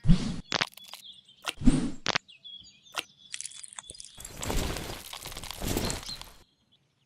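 A series of sharp knocks and thumps in the first three seconds, with faint high chirps between them. This is followed by about two seconds of rough rustling noise that cuts off suddenly.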